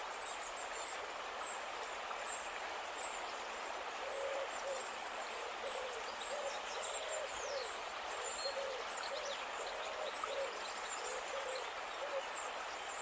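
Mountain stream rushing steadily over rocks. From about four seconds in to near the end, a bird calls a run of short hooting notes, about two a second, with thin high bird chirps above.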